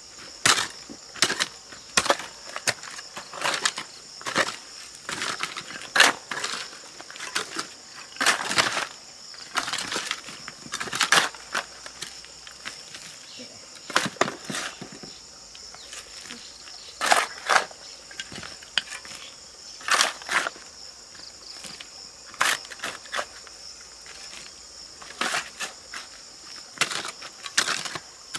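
Irregular knocks and drawn-out scraping strokes, about one or two a second, over a steady high-pitched insect drone.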